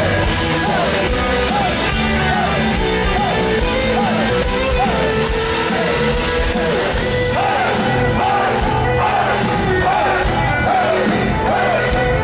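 Folk metal band playing live on a festival stage: distorted guitars and drums, with sung and shouted vocals. A short melodic figure repeats about twice a second over the riff.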